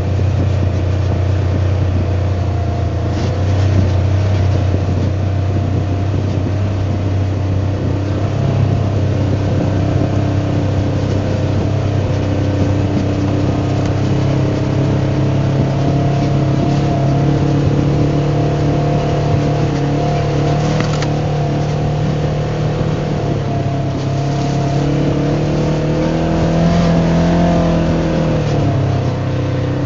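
Side-by-side UTV engine running under way at low speed, a steady drone that rises in pitch about a third of the way in and again near the end, then drops as the vehicle slows.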